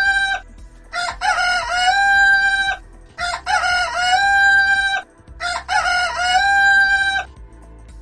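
Rooster crowing cock-a-doodle-doo three times in a row, each crow ending on a long held note, after the tail of an earlier crow at the very start.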